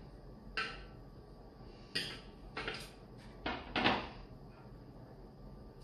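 Thermomix spatula scraping and knocking against the stainless-steel mixing bowl and a small ceramic bowl as chopped salami is scraped out: about five short knocks, the loudest two close together toward the end.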